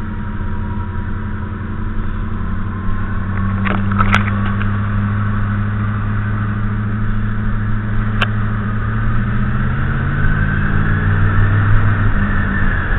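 1985 Chevrolet Monte Carlo SS's 305 V8 running with a whine from its first gear, which the owner puts down to a straight-cut first gear. The engine and the whine rise in pitch together from about ten seconds in, then drop back just after twelve seconds. There are a few sharp clicks about four seconds in and one more near eight seconds.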